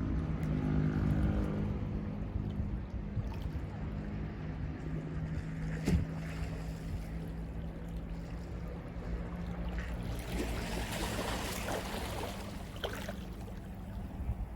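Boat engine running with a steady low hum that fades gradually. A wave washes in for a few seconds about ten seconds in, and a single knock comes about six seconds in.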